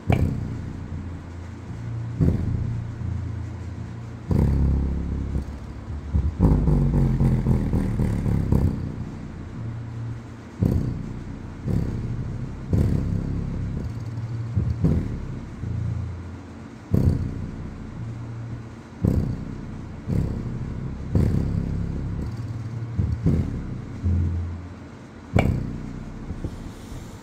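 Deaf Bonce DB-SA2508 8-inch subwoofer playing a bass test track in free air: deep bass notes hitting every second or two. There is a little noise that the owner puts down to the amp clipping.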